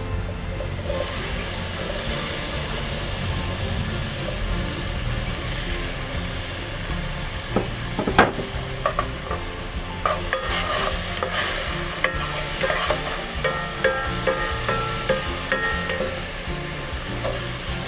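Chopped onions and tomatoes sizzling as they fry with garlic in oil in a pot, with a spoon stirring and knocking against the pot now and then, most often in the second half.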